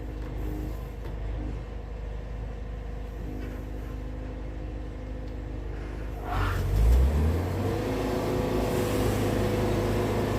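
Portable band sawmill's engine idling, then about six seconds in throttled up with a short rising rev and running louder and steady at cutting speed.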